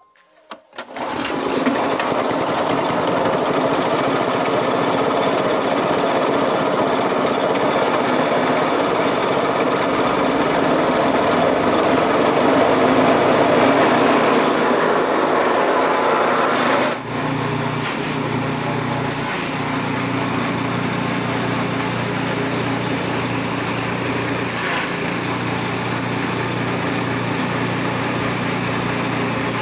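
Small-engine grass chopper (chaff cutter) starting about a second in and then running steadily at speed. About halfway through the sound changes abruptly, and it keeps running as rice straw is fed in to be chopped.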